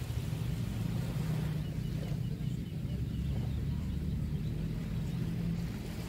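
A motorboat engine running steadily with a low hum, over small waves washing on the sand.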